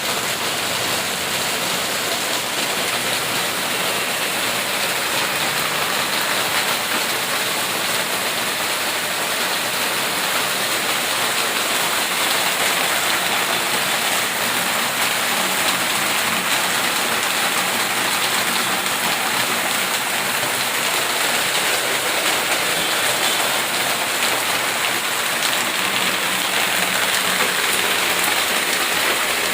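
Steady, heavy rain falling and splashing on surfaces, an even hiss with no pauses.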